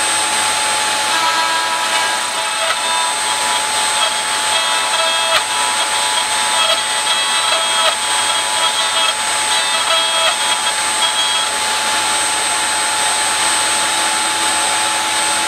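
Electric router in a router table running steadily, with a constant high whine. From about a second in until about three-quarters through, the spinning cutter shaves the end of a walking-cane stick as it is pushed in and out against it, adding a wavering cutting tone and a few sharp ticks.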